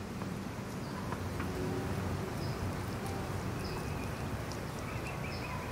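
Dogs eating chicken and rice: faint chewing and clicks over a steady low background noise.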